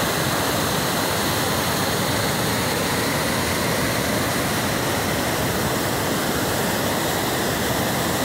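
Muddy flash-flood torrent rushing down a river channel: a steady, unbroken roar of water.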